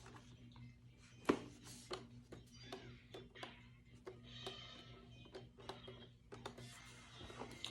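Quiet handling of plastic parts and packaging: scattered light clicks and taps, one sharper knock about a second in, over a steady low hum, with faint music.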